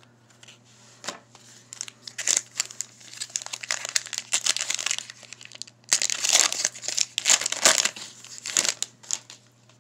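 Foil wrapper of an NBA Hoops Premium Stock trading-card pack crinkling and tearing as it is opened by hand: irregular crackling that starts about a second in, is densest in the middle and dies down near the end.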